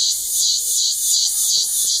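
Cicadas singing: a loud, high-pitched buzz that pulses evenly, about two to three surges a second.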